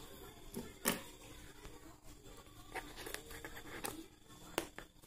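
Cardboard box and its clear plastic tray being handled and pulled open: faint scattered clicks and rustles, with a sharper click about a second in.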